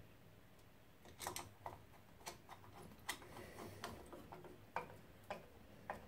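Faint, irregular light clicks and taps of a screw being driven in by hand with a screwdriver inside a boiler casing, about eight or nine small clicks spread unevenly.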